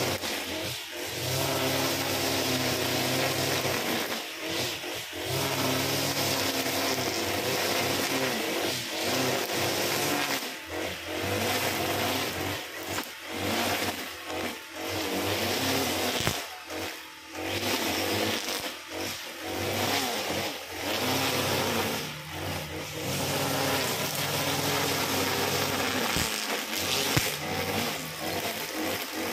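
Brush cutter powered by a Honda GX35 four-stroke engine, running at high revs while cutting grass, with the engine note dipping briefly many times.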